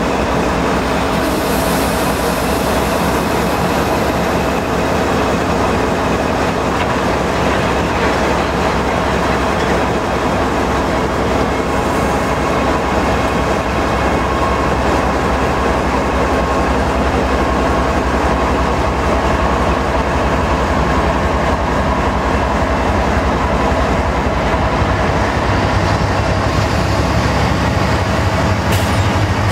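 CN freight train's diesel locomotives running and its tank cars rolling on the rails, a steady rumble with clickety-clack from the wheels. A deeper engine drone grows stronger near the end.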